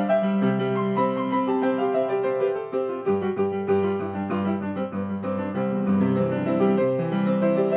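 Grand piano playing a free improvisation: a moving melody over held chords, with deeper bass notes joining about halfway through. This is the returning C-major closing section, played at a slightly quicker tempo to round off the piece.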